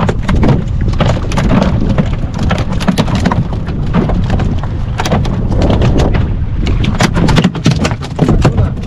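Wind buffeting the microphone on a boat at sea, making a heavy low rumble, with many sharp, irregular knocks and clatters over it.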